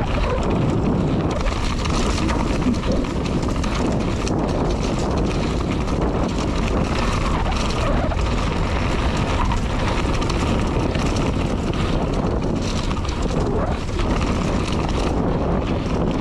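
Wind buffeting the microphone as a downhill mountain bike runs down a dirt trail. It is a steady rush of noise with scattered clatters from the bike rattling over the rough ground.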